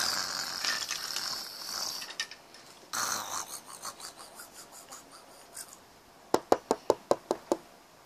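Two spells of breathy rasping, then a quick run of about eight sharp knocks on a hard surface near the end, a knock at the door.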